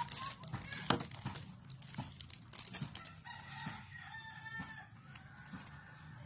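A rooster crowing, one long call about three seconds in. Light clicks and knocks from handling sound around it.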